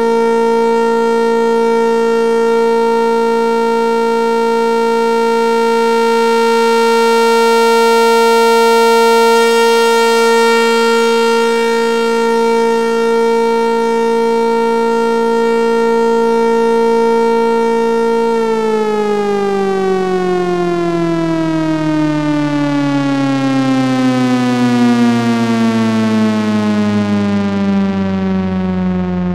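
Synthesized outdoor warning sirens holding a steady, loud tone, then winding down with falling pitch for the last third or so.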